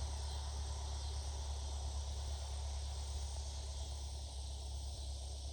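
Steady cockpit noise of a Cessna 172 with its engine throttled back to idle during the landing rollout: a low hum under an even hiss, easing slightly near the end.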